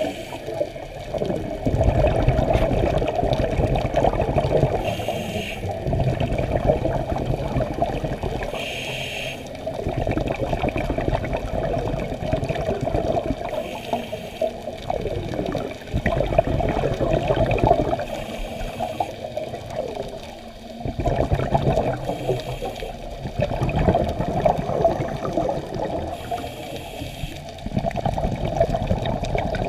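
Scuba regulator breathing heard underwater: stretches of bubbling, rushing exhaled air, broken by a short hiss about every four to five seconds.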